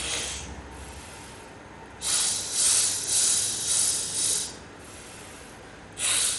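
Breath drawn in hissing through clenched teeth in sheetkari pranayama, a sharp 'sss' for about two and a half seconds in a few pulses, starting about two seconds in. A quieter stretch follows, and a new hissing in-breath starts near the end.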